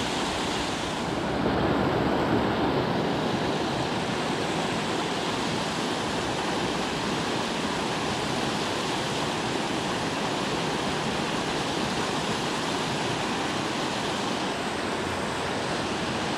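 Water pouring over a low-head dam spillway: a steady rushing roar, swelling slightly a couple of seconds in.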